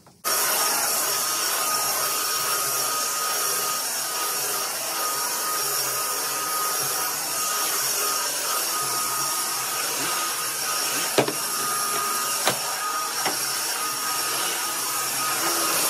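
Stick vacuum cleaner running on a rug: a steady rush of air with a thin motor whine, starting abruptly at the outset. Two sharp clicks about a second apart past the middle, as of debris pulled into the head or the head knocking against something.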